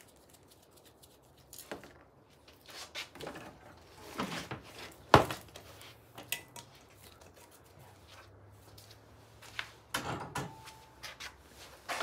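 Metal tools clinking and knocking against a dirt-bike wheel rim as a tire is levered onto it by hand: scattered light clicks, one sharp loud metal strike about five seconds in, and a cluster of knocks near the end.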